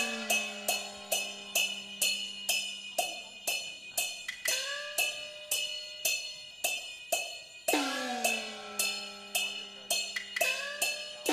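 Peking opera percussion: crashing cymbals struck in a steady beat of about two or three a second, with a gong whose pitch sinks as it rings, struck at the start and again about eight seconds in.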